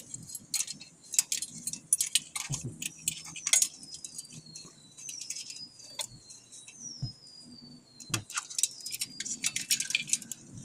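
Irregular metallic clicks and clinks of hand tools and steel injector fuel-line fittings being handled on a Nissan Diesel TZA520 V8 diesel engine with the engine stopped. A faint high whistle glides down in pitch three times in the background.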